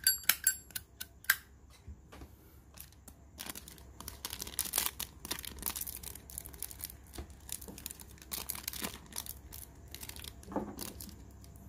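A few sharp metallic clinks from the handling of a Zippo lighter in the first second or so, then several seconds of irregular crinkling and rustling handling noise with small clicks.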